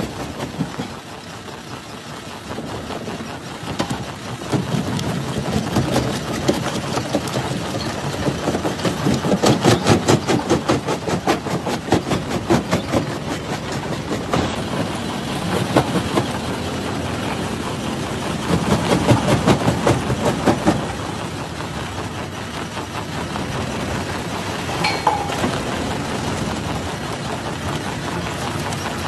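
Jaw crusher running and crushing rock: a steady mechanical drone full of rapid cracking and knocking. It swells louder around ten seconds in and again around nineteen to twenty seconds in.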